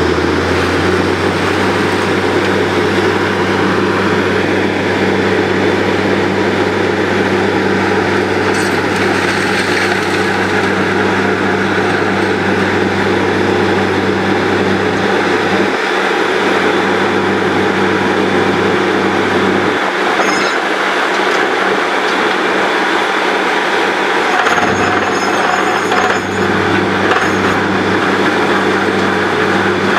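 Truck-mounted borewell drilling rig running as it drills, a loud, steady mechanical din with a low engine hum. The hum briefly drops out twice in the second half.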